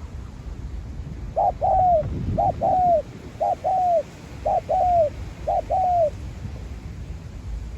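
Spotted dove cooing: five phrases about a second apart, each a short note followed by a longer drawn-out coo that falls at the end, starting about a second and a half in and stopping around six seconds.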